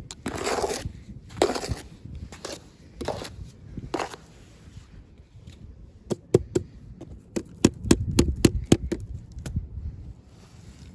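Toy packaging being handled and opened: rustling and scraping swishes, then a quick run of sharp clicks and taps in the second half.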